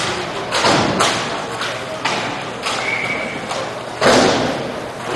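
Roller hockey pucks and sticks hitting the boards and floor: a series of about five sharp thuds echoing through the rink, the loudest about four seconds in.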